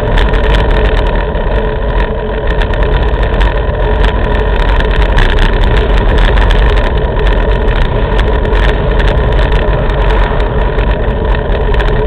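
Steady wind rush and road noise on the camera microphone of a moving bicycle, mixed with the engines of motorcycles passing in the oncoming lane.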